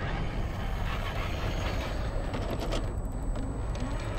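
Small electric motor and gear drive of a Vanquish VS4-10 RC rock crawler whirring as it climbs a granite slab, with tyres crunching over grit and scraping on the rock, and a faint steady high whine. A short cluster of clicks comes a little past the middle.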